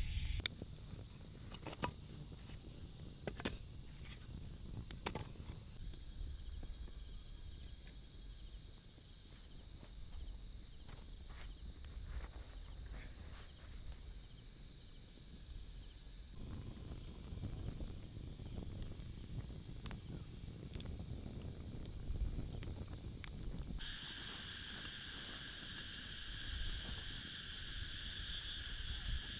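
Insects chirring steadily at a high pitch, crickets among them, the mix of calls shifting a few times. Near the end a louder insect call joins, pulsing about five times a second.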